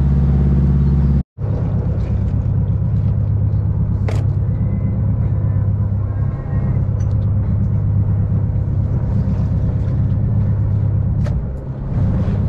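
A boat's engine running, giving a steady low rumble. It cuts out for a split second about a second in, then carries on.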